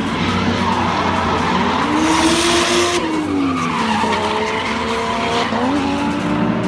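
Drift car engine revving up and down as the car slides, over a steady hiss of skidding tyres. A louder burst of tyre screech comes about two to three seconds in.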